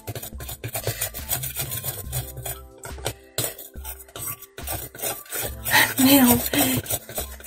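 A spoon stirring white glue and shaving foam in a glass bowl, with rapid scraping and clinking against the glass. About six seconds in, a short burst of voice rises above the stirring.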